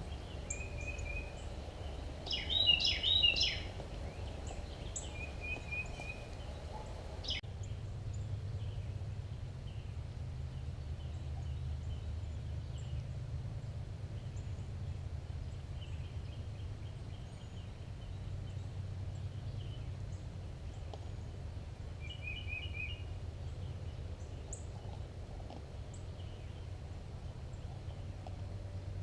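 Birds calling, with a loud burst of rapid rattling calls about three seconds in and shorter chirping trills around it. After about seven seconds the sound changes suddenly to faint scattered chirps over a low steady rumble.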